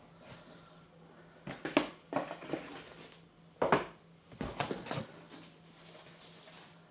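Cardboard and plastic packaging being handled: three short bursts of knocks, scrapes and rustles as boxes and a plastic tray are moved and a small cardboard box is lifted out.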